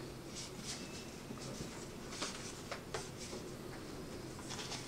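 Pen scratching on a book's paper page in short, irregular strokes as a handwritten inscription is written, over a faint steady low hum.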